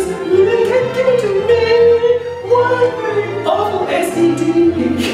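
Music with singing: a voice holds long sung notes over backing music with a steady bass line.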